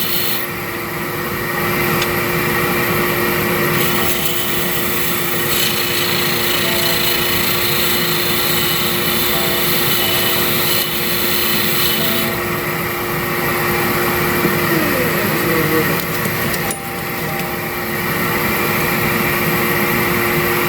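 Wood lathe spinning a cedar blank with a shop vacuum running, steady and loud, while a tool or abrasive works the wood in spells that come and go every few seconds.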